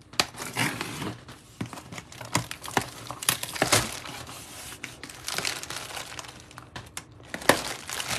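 Scissors slitting the packing tape along the seam of a cardboard box, then the cardboard flaps being pulled open: a run of scraping, rustling and crackling cardboard with sharp snaps and taps, the loudest about midway and near the end.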